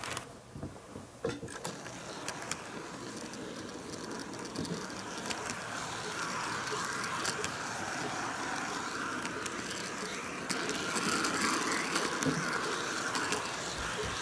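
HO-gauge model train with a camera car rolling along sectional track close to the microphone: a steady rolling rattle of wheels on rail, with irregular clicks as the wheels cross rail joints. It grows louder over the course of the sound.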